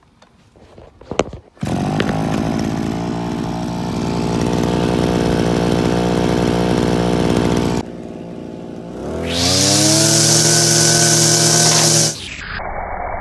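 Giant TB43 brushcutter's two-stroke engine running steadily. About nine seconds in it is revved up with a rising whine to a high steady speed, then drops back to a lower, duller running near the end.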